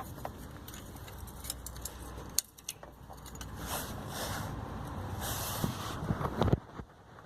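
Workshop sounds of hand tools on a truck engine: metal clinks and rattles, then a steady rising noise with two short hissing bursts that stops abruptly near the end.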